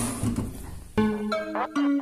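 Background music, a light melody of short plucked-sounding notes, starting about a second in after a brief stretch of low, indistinct noise.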